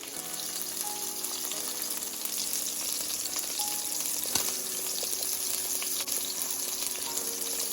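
Chicken tenders frying in hot oil in a skillet: a steady sizzle. A single short click about four seconds in.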